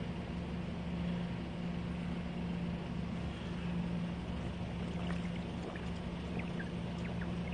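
A steady low hum over a constant noisy background. In the second half a man drinks from a plastic bottle, with a few soft gulps and bottle ticks.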